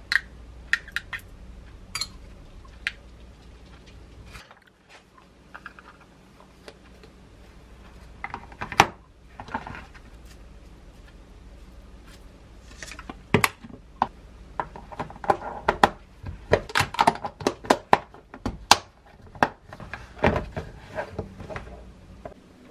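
Plastic lunch-box containers and tongs being handled on a kitchen counter: scattered light taps and clicks, then a dense run of sharp plastic clicks in the second half as the latching Lock&Lock lids are pressed on and snapped shut.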